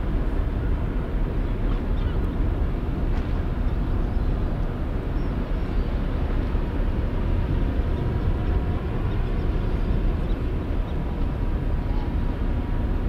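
Steady low rumble of the ro-ro ferry Mega Express's engines and machinery, even throughout with no distinct knocks; a faint steady whine sits on top of it for a few seconds past the middle.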